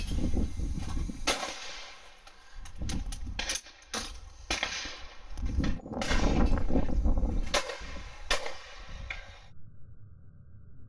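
Over-and-under shotgun shots at clay targets: a string of sharp single reports at uneven intervals, some close and loud, others fainter, over a gusty low rumble.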